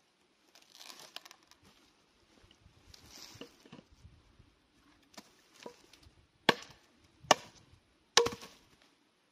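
Cold Steel Trail Hawk tomahawk striking a small green log: three sharp wooden knocks a little under a second apart in the second half, after soft rustling of leaf litter and handling of the log.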